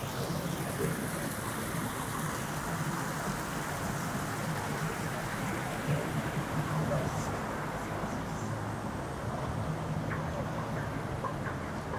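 Busy city street ambience: a steady rumble of passing traffic mixed with indistinct voices of passers-by.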